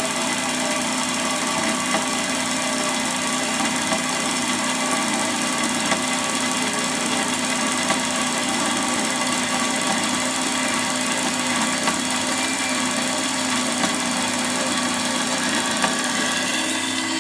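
Hafco BS-5V small metal-cutting bandsaw running steadily while its blade cuts through 10 mm thick metal plate, with a light tick about every two seconds.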